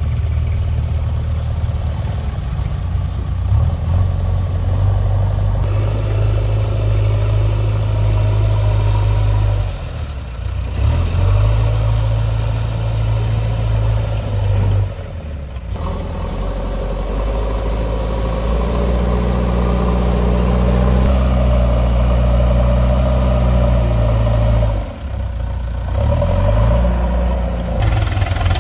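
Diesel engine of a JCB 3DX backhoe loader running as it works, its speed rising and falling with brief drops three times. It runs hardest in the second half.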